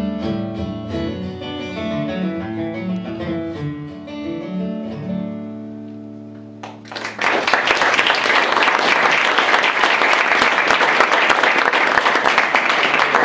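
Solo acoustic guitar finishing a song with a picked instrumental ending whose last chord rings and fades. About seven seconds in, an audience breaks into applause, louder than the guitar, which carries on to the end.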